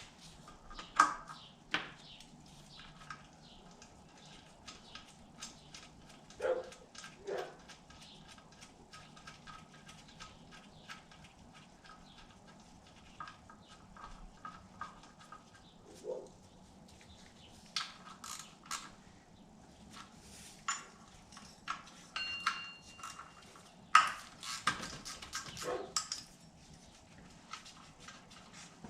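Scattered metal clinks, taps and knocks from wrenches, sockets and pulley parts being handled on an engine, with a few short ringing pings, over a faint steady hum.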